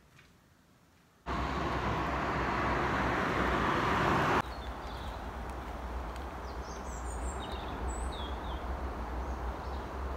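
Outdoor ambience: a steady rushing noise with a low hum that starts abruptly about a second in and drops to a lower level about three seconds later, with a few short bird chirps in the second half.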